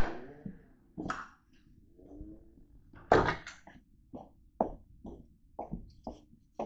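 Footsteps on a hard floor, evenly about two a second, starting about four seconds in. Before them come a few sharp knocks, the loudest about three seconds in.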